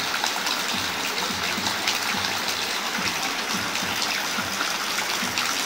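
Steady rain falling: an even hiss of rainfall with many small drop ticks and water running off.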